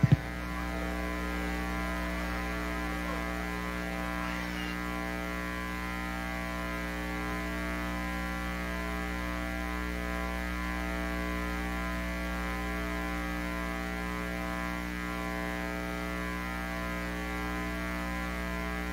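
Steady electrical mains hum through an idle concert PA sound system, one unchanging buzz made of many evenly spaced tones, with no music playing.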